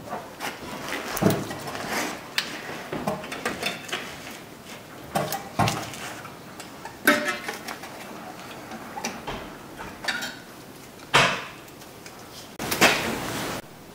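Vice grips and steel brake springs clinking and clanking against the shoes and backing plate as the return springs are worked off a 1996 Chevy Tahoe's rear drum brake. The clicks are irregular, with louder knocks about 7 and 11 seconds in and a brief rattle near the end.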